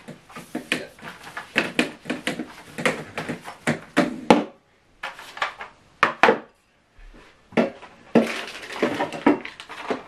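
Irregular knocks and clatter of vacuum accessories being handled: a Numatic Henry Turbo's hose, chrome steel wand tubes and floor tool being fitted together and knocked against a table, with the vacuum switched off.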